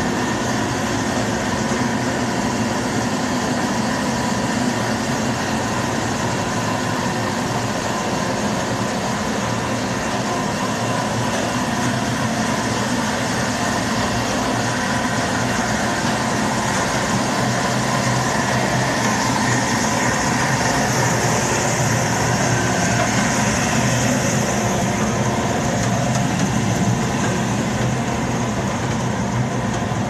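Steady drone of boiler-room machinery running: the boilers' burner blowers and motors, with a constant hum under a broad roar. A higher hiss swells for a few seconds past the middle.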